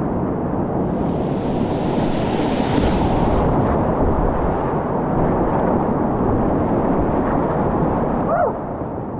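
Loud, steady rushing of whitewater rapids, with wind buffeting the microphone. Near the end the rush drops and a brief wavering pitched sound is heard.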